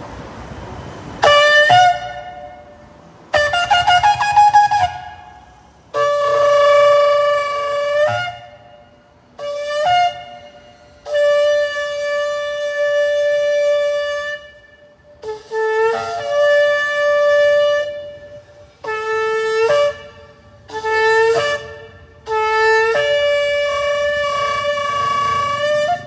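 A long spiralled shofar blown in about ten blasts, starting about a second in: some short, some long and held steady. Most sit on one note, while several in the second half drop to a slightly lower note or step between the two.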